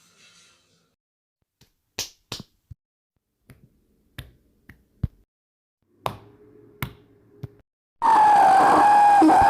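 A string of sharp, separate clicks and snaps, then near the end a loud, steady tone that wavers slightly starts abruptly.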